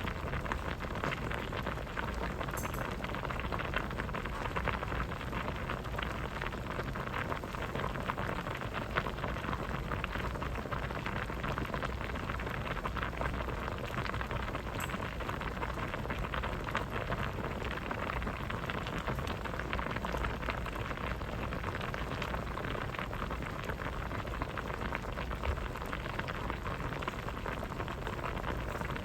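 Vegetable soup boiling in a pot: steady, unbroken bubbling with many small pops.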